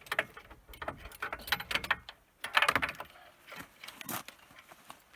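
Metal hardware clinking and rattling as it is handled: a run of short clicks and rattles, loudest in a cluster about two and a half seconds in.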